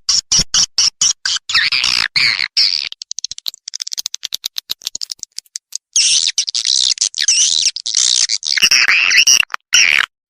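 Swiftlet lure call track: chopped swiftlet twittering and chirps. A few seconds in, this gives way to a fast run of dry clicks. About six seconds in, dense twittering returns.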